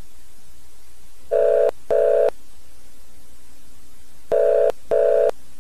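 Telephone ringing tone in a double-ring pattern: two short rings, then two more about three seconds later, over a steady static hiss. It all cuts off suddenly at the end.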